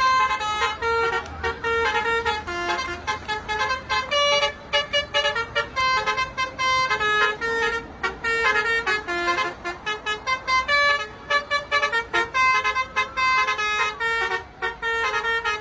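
Telolet bus horn, a set of musical air horns playing a quick tune of short notes that jump from pitch to pitch.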